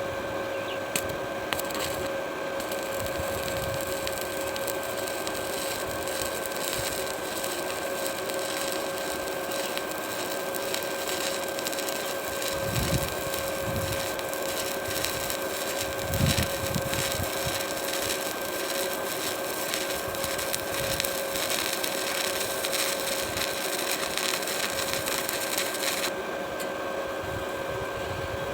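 Stick welding arc crackling and sizzling on thin square pipe, striking up about two seconds in and breaking off a couple of seconds before the end, over a steady hum.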